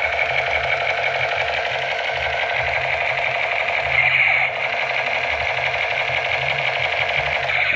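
Battery-powered Spider-Man toy assault rifle playing its electronic gunshot sound effect: a fast, steady buzzing rattle, briefly louder about four seconds in.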